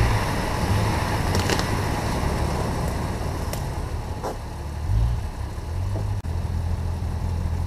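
Low, uneven rumble on the microphone of a camera carried along a woodland path, with a few light clicks of footsteps and twigs.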